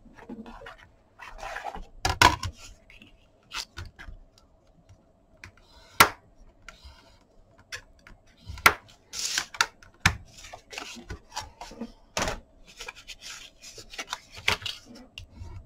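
A bone folder rubbing and scraping along the grooves of a scoring board as kraft card is scored, with scattered sharp clicks and knocks of the board and tools being handled.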